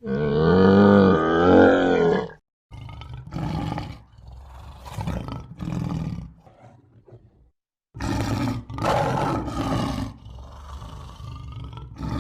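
Big cat roaring: one long, pitched roar lasting about two seconds, then shorter, rougher roars and grunts, with a sudden cut to another run of roars about eight seconds in.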